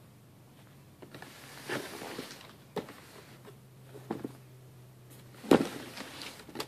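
Handling noise from Air Jordan 1 sneakers being moved about on their cardboard shoebox: scattered soft knocks and rustles, with one sharp knock about five and a half seconds in that is the loudest.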